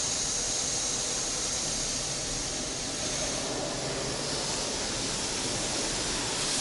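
Automatic car wash water jets spraying the car, heard from inside the cabin as a steady rushing hiss of water on the glass and body, growing louder at the very end.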